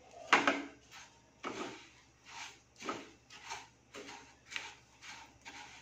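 Silicone spatula stirring sugar-coated strawberry pieces in a nonstick pan: a run of short gritty scrapes and swishes, about two strokes a second, as the dry sugar grinds against the pan before it has begun to melt.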